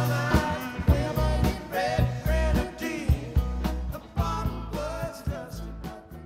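Background music: a song with a sung vocal over drums and bass.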